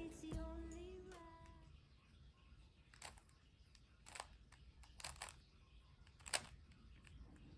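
Background music fading out over the first second and a half, then near silence broken by a few faint, short clicks.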